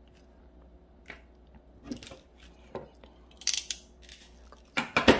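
Crimping pliers being picked up and closed on a metal crimp sleeve threaded on heavy monofilament leader: a few scattered clicks and rustles of the tool and line, with the loudest clack near the end.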